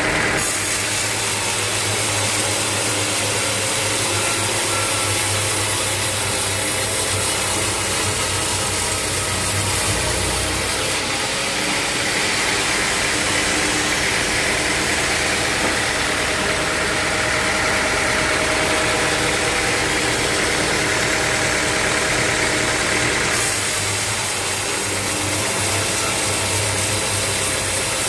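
Sawmill machinery running steadily: a continuous mechanical drone with a hiss over it. The sound changes abruptly about eleven seconds in and again a little after twenty-three seconds.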